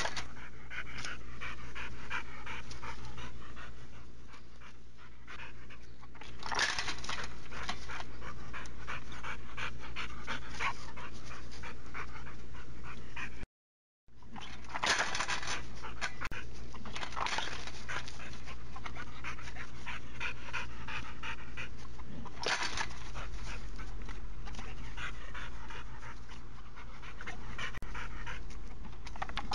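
A pit bull panting hard and fast from exertion, with several louder surges of breath. The sound breaks off for a moment about halfway through.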